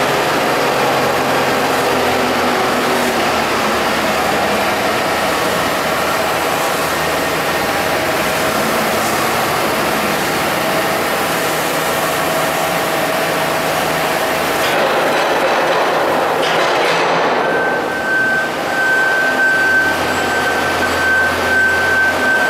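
Farm tractor under way: the engine runs steadily beneath heavy, continuous rolling and rattling noise. A steady high-pitched whine comes in about two-thirds of the way through.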